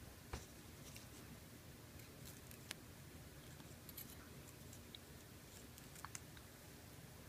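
Near silence with a few faint, sharp clicks and taps of steel forceps and a hobby knife handling boxwood leaves on a paper towel, spread out, the clearest about a third of a second in.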